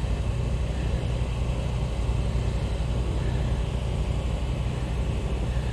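A steady low mechanical hum with a faint background hiss, unchanging throughout.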